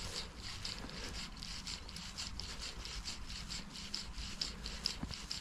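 Fly line rubbing through the fingers and rod rings during a slow hand-twist retrieve: an even run of short, rasping strokes, about four a second.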